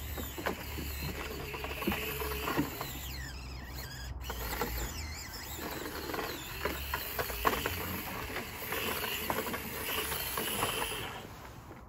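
Axial SCX24 micro RC crawler's small electric motor and gears whirring in bursts, with its tyres and plastic body clicking and knocking against the scrap wood as it lies on its side and tumbles off the pile.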